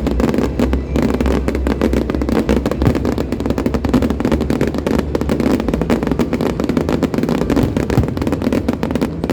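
Aerial fireworks going off in a dense, continuous barrage of rapid crackling bangs.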